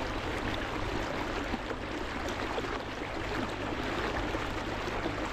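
Steady wash of moving water, an even trickling rush.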